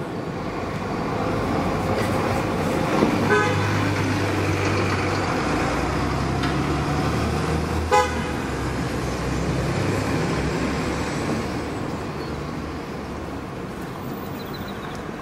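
Road traffic running steadily, a low rumble swelling as vehicles pass, with two short car-horn toots, about three seconds in and near eight seconds.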